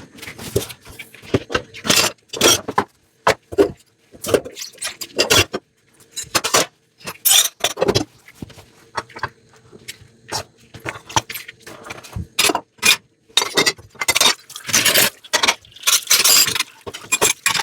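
Dishes being handled for washing: irregular clinks, knocks and scrapes of crockery, with short pauses between them.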